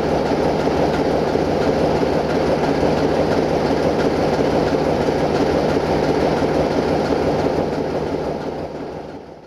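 LDH45 diesel-hydraulic shunting locomotive running steadily as it moves slowly with a tank wagon, its engine drone carrying under a constant rumble, fading out over the last two seconds.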